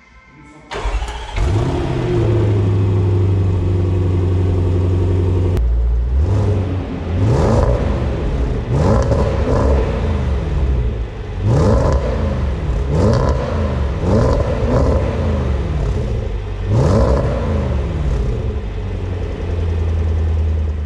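Range Rover Sport SVR's 5.0-litre supercharged V8 exhaust. The engine starts about a second in with a brief flare, runs at a high idle that drops lower a few seconds later, then is blipped about seven times, each rev rising and falling quickly, before settling back to idle.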